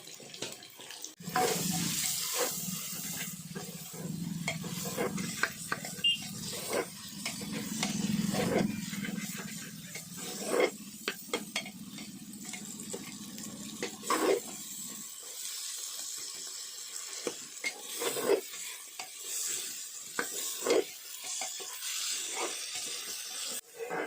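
Onion-tomato masala with ground spices sizzling in hot oil in a pan while it is stirred, the spoon scraping and knocking against the pan again and again. A low hum underneath stops about two-thirds of the way through.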